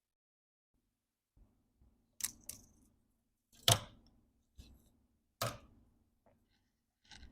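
A series of sharp clicks and taps, about half a dozen scattered over several seconds, the loudest a little before the middle: small hand tools being handled and set down on a workbench during board-level soldering work.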